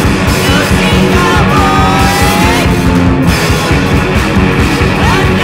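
Loud noise-rock recording from a bass-less three-piece: distorted guitars over steady drums, with a few notes sliding up and down in pitch.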